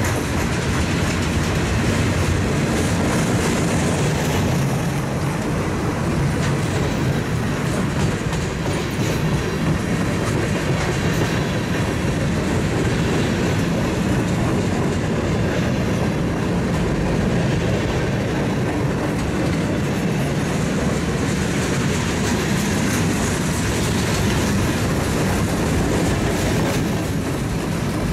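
A mixed freight train's cars rolling past on the near track: a steady, loud rumble of steel wheels on the rails that holds even throughout.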